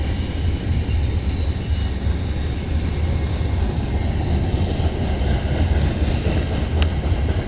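Freight train cars rolling past on the track, a steady low rumble with a few faint clicks near the end.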